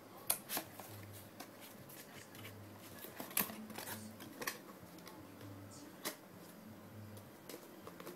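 Cardboard packaging boxes handled and folded by hand: scattered taps, scrapes and rustles, the sharpest knocks about three and a half seconds and six seconds in.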